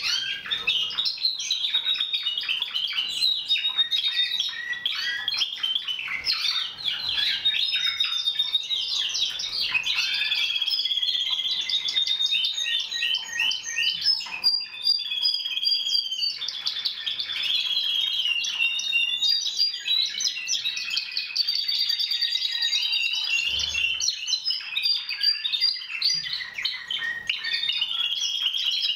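Timbrado Español canaries singing without a break: high, fast trills of repeated notes mixed with held whistled notes.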